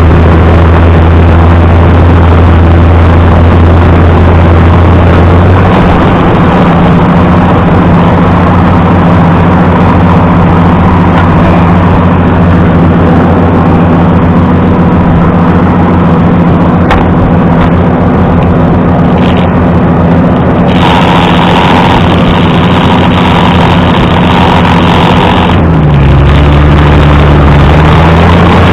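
Allis-Chalmers D19 tractor's six-cylinder engine running steadily, back in running order after quitting from fuel trouble. The engine note rises a little about six seconds in and briefly sags and recovers near the end.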